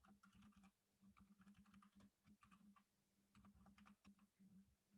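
Faint typing on a computer keyboard: quick, irregular clusters of light keystrokes.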